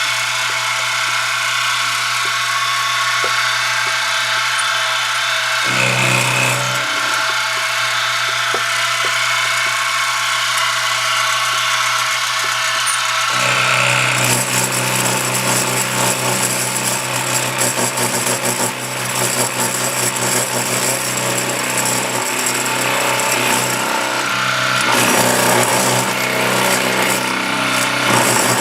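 Milling machine spindle running with a steady whine. About halfway through, the cutter bites into the metal locomotive frame weight and a rough, chattering grinding joins the whine.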